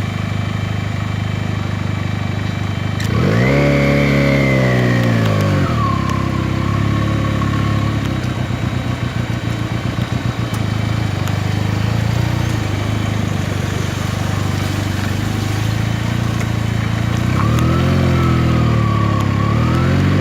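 Benelli TNT 300's parallel-twin engine idling steadily, with its revs swept up and back down twice, once a few seconds in and again near the end.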